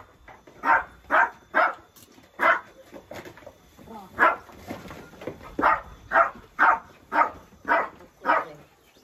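A dog barking repeatedly: short sharp barks about two a second, in runs with a brief pause in the middle.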